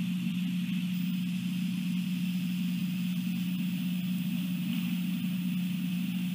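A steady low hum, even and unchanging, with a fainter steady high-pitched hiss above it.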